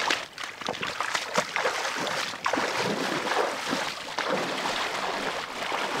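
A person in rubber waders wading through shallow sea water, legs sloshing and splashing with each step in an irregular run of splashes.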